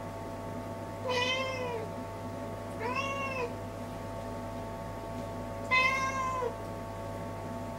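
Domestic cat meowing three times, each meow rising and then falling in pitch, the third the loudest.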